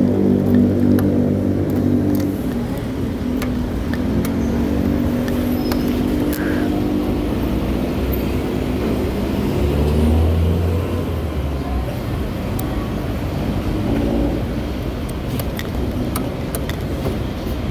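CFMOTO 300SR motorcycle engine running on the move. Its steady pitched note is clear for the first couple of seconds, then rushing wind and road noise take over, with a low hum about ten seconds in.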